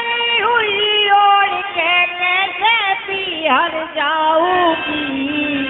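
A man singing a Haryanvi devotional folk song (bhajan) into a microphone, amplified through a PA, with long drawn-out notes that glide and waver.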